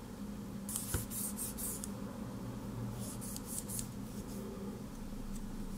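A fingertip rubbing over the label of a Crucial T500 M.2 SSD, a soft scratchy sound in two short spells, about a second in and again around three seconds in, over a low steady hum.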